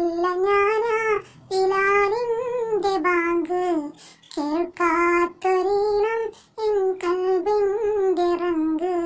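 A solo high voice singing a Malayalam Nabidina song in praise of the Prophet, in held phrases with a wavering pitch and short pauses for breath between them.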